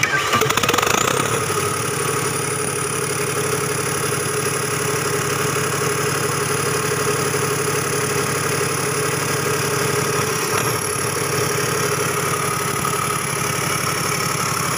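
Perkins three-cylinder diesel engine starting and catching almost at once, a high whine rising as it comes up to speed, then running steadily at idle. There is a brief hitch in its speed about ten seconds in.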